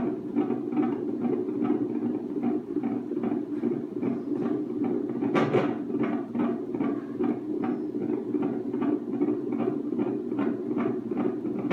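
A single sharp hiccup about five and a half seconds in, over a steady low hum and a soft, rapid ticking.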